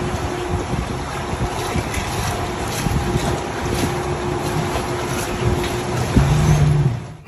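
Wind buffeting the microphone and water rushing past the hull of a small electric boat under way, with a faint steady hum that grows louder near the end.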